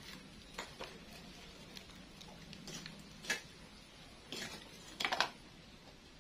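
Wood fire under a wok crackling in scattered sharp pops and clicks, with the loudest cluster about five seconds in.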